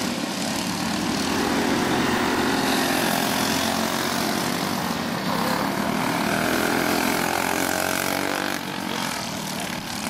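Small go-kart engine running hard around a dirt oval, its pitch rising and falling as the kart goes through the turns, and a little quieter near the end.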